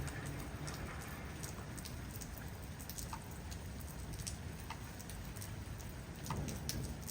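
Rain falling steadily, with scattered sharp drops ticking on a hard surface close by.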